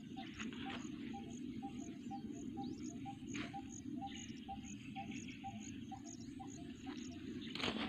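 Insects chirping in an even rhythm, a high chirp and a lower pulse each repeating about twice a second, over a low steady outdoor hiss; a brief rustle near the end.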